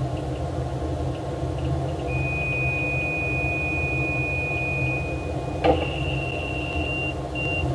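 Neutron beamline's beam shutter opening alarm: a steady high tone starts about two seconds in, a knock comes near the six-second mark, and then a slightly higher tone sounds and breaks into evenly spaced beeps. A steady low machinery hum runs underneath.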